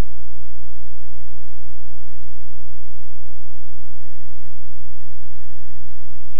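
Loud, steady electrical mains hum with a layer of hiss, picked up by the screen-recording's audio chain while nothing else sounds.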